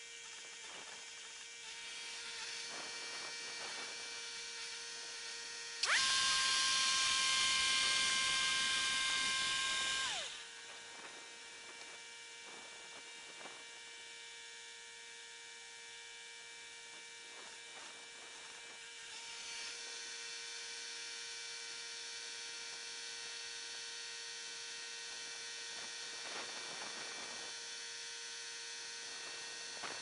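Wood-Mizer LT70 portable band sawmill running with a steady hum. About six seconds in, a much louder, higher whine starts suddenly, holds for about four seconds, then dies away. Later the hum grows a little louder as the saw head travels back along the bed.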